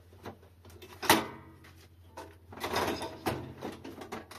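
Hand tools being rummaged through and moved about on a workbench. A sharp metal clink about a second in rings briefly, followed by a spell of clattering and knocking.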